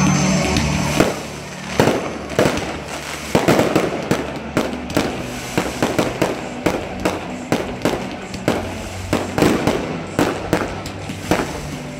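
Aerial fireworks going off in quick succession: a dense run of sharp bangs and crackling bursts, several a second, with the loudest reports spaced irregularly.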